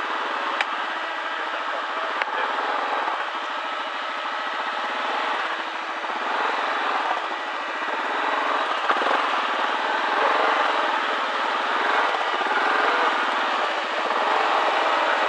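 Yamaha ATV engine running steadily, with two sharp clicks about half a second and two seconds in.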